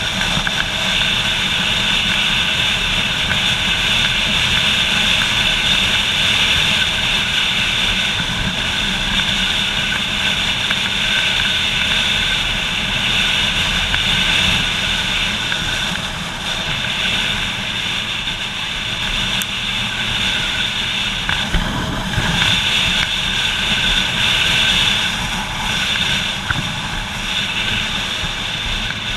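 Motorcycle riding at road speed, heard from the bike itself: a steady mix of engine running and wind rushing over the microphone, with a brief change in the engine note a little over two-thirds of the way through.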